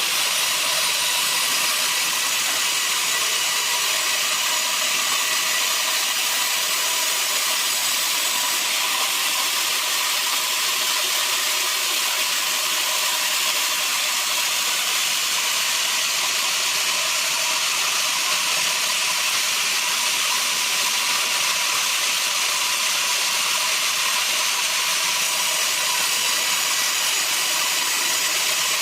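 Electric horizontal band sawmill running, a steady, unchanging hiss.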